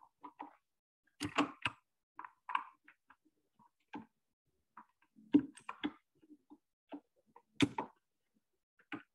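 Computer keyboard keys clicking: a few scattered, irregular keystrokes, the loudest clustered about a second and a half in, about five and a half seconds in and near the end.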